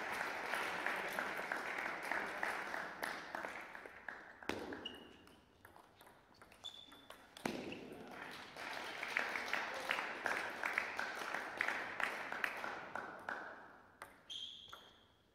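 Table tennis play in a sports hall: sharp ticks of the celluloid ball and brief high squeaks, over a dense crackling clatter that fades about four seconds in and returns a few seconds later.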